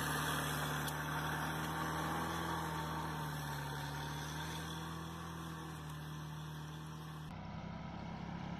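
Small tractor engine running steadily under load while it pulls a plough through soil. About seven seconds in, the sound cuts abruptly to a different, quieter tractor engine.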